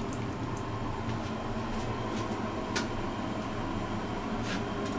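Steady low mechanical hum with a few light clicks and taps over it.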